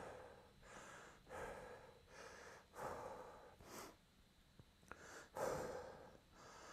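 A man's faint, rhythmic breathing under exertion, alternating breaths in and out at an even pace. A light click about five seconds in.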